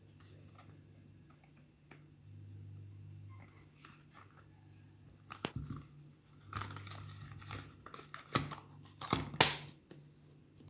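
Crinkling and rustling handling noise with several sharp clicks and knocks, sparse at first, then busier from about halfway through, with the loudest click near the end.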